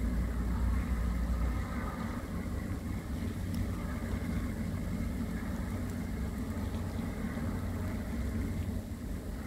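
Steady low drone of the plough dredger's diesel engine as it tows through the channel, heard across open water.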